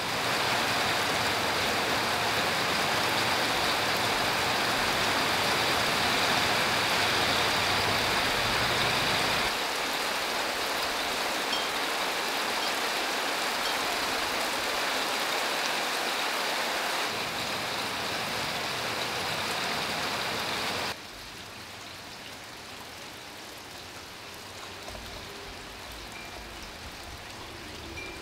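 Steady rain falling: a dense, even hiss. It changes in tone about 10 and 17 seconds in, and drops noticeably in level about 21 seconds in.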